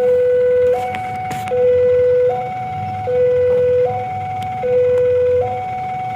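Railway level-crossing warning alarm sounding a steady two-tone cycle: a lower note alternates with a higher one about every 0.8 s, and the lower note is louder. The alarm warns that a train is approaching and the crossing barriers are closing.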